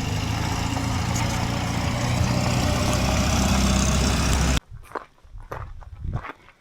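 A vehicle engine running steadily at a low, even pitch that stops abruptly about four and a half seconds in, followed by footsteps crunching on stony ground.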